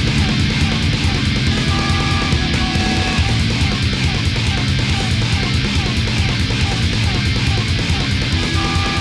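Hardcore punk background music made on a computer, with distorted electric guitars, bass and a fast, steady drum beat.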